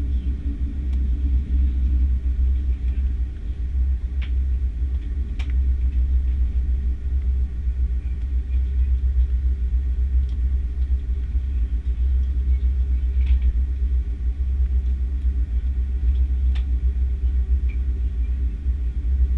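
Steady low rumble of an Airbus A330-300 on the ground during taxi, its Rolls-Royce Trent 700 engines at idle, with a few faint clicks.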